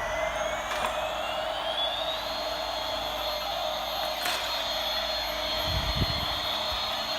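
Battery-powered toy airplane running with a jet-engine-like whine that rises in pitch over about two seconds, then holds steady over a constant hum.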